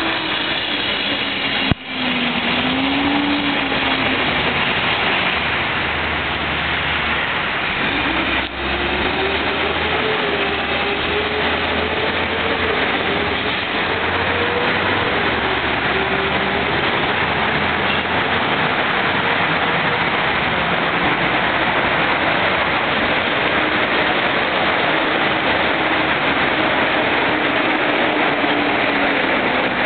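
Busy city street traffic: a steady rush of passing vehicles with an engine drone that wanders up and down in pitch. The sound drops out for an instant twice, near the start and about a third of the way in.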